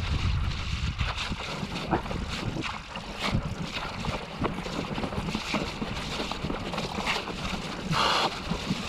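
E-mountain bike riding noise on a mountain bike trail: wind buffeting the camera microphone, tyres rolling over rough, stony and muddy ground, and frequent short knocks and rattles from the bike. A brief louder noise comes near the end.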